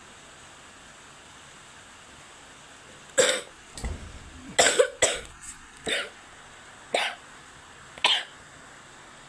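A person coughing, a string of about seven short coughs over some five seconds, starting about three seconds in over a steady low hiss.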